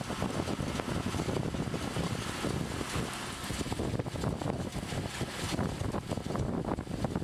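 Kubota MR70 PowerCrawler tractor's diesel engine running under load while its drive harrow churns through flooded paddy mud, with steady sloshing and splashing of muddy water. Wind buffets the microphone.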